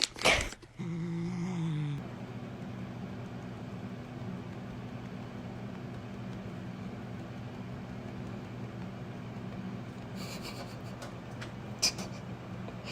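A short loud sound at the very start, then a steady low mechanical hum. Near the end come a few light clicks and one sharp tick.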